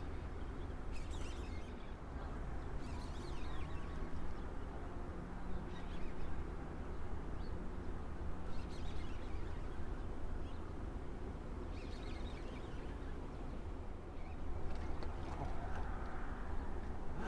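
Steady rush of wind and river water, with short bird calls breaking in every few seconds.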